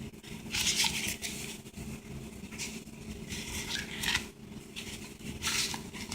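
A paper napkin rustling and scraping in irregular bursts as it is handled, over a steady low hum.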